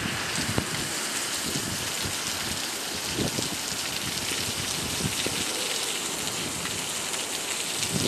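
Heavy rain pouring onto a cobblestone street: a steady hiss with scattered close drop splashes.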